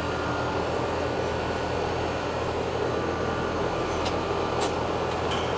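Outdoor air-conditioning condensing unit (Heritage 13 SEER 2.5-ton) running steadily: condenser fan and compressor making an even whoosh with a low hum, with a few faint light ticks near the end.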